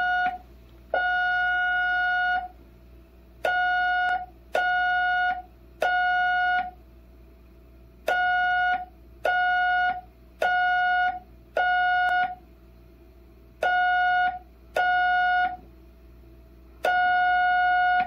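Morse code (CW) sent as a steady beeping tone, very slowly. The dits are drawn out to nearly a second and the dahs to about a second and a half, with long gaps between letters. That is roughly 3 to 5 words per minute, too slow for a practised operator to copy.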